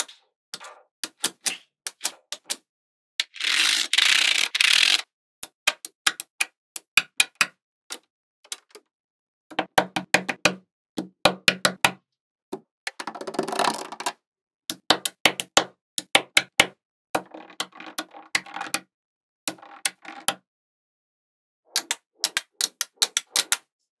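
Small magnetic balls clicking as they snap onto each other and onto slabs of balls, in quick runs of sharp clicks. A longer rattling clatter of many balls comes about three to five seconds in and again around thirteen seconds in.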